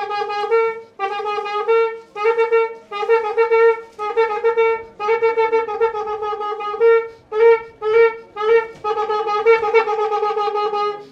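A side-blown ivory horn is blown in short phrases that step between two close pitches, with brief breaks between them. About two-thirds of the way through it gives four short separate blasts, then returns to longer phrases.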